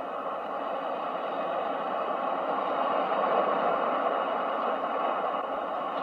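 Steady rushing noise of ocean surf, swelling slowly to a peak about three seconds in and then easing a little.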